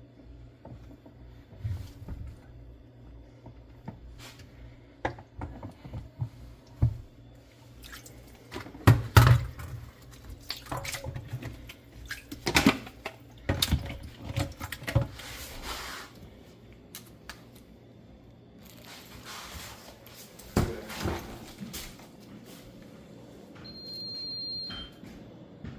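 Irregular clicks, knocks and clatters from hands working on a Miele dishwasher, with wet swishing and dripping. A short high beep sounds near the end.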